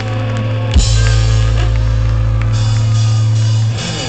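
Ska-punk band playing live with guitars, bass, drums and horns. A drum hit comes about a second in, then a long held chord with cymbal wash that drops away near the end.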